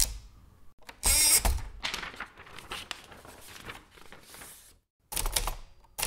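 Manual typewriter being loaded with paper: a sudden run of rapid ratcheting clicks about a second in that trails off into softer mechanical clatter, then after a brief silent gap another short, noisy burst of handling near the end.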